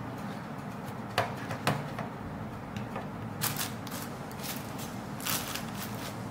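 Two sharp clicks of small plastic items set down on a tabletop, then the crinkling of a plastic packaging bag being handled and pressed flat.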